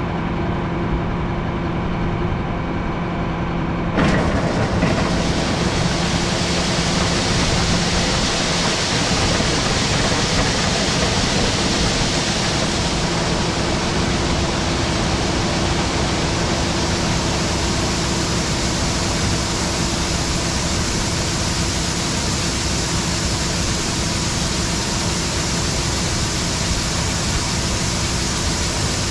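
A tractor engine runs steadily. About four seconds in, a loud, steady rushing starts on top of it and holds: shelled corn pouring from a grain cart's unloading auger into a truck.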